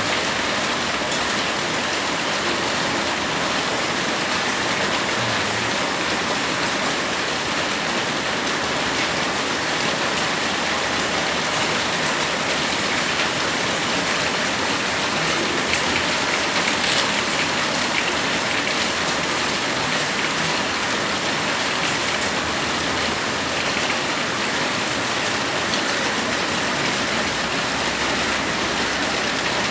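Heavy rain pouring down in a steady, dense hiss. There is one brief sharp click about seventeen seconds in.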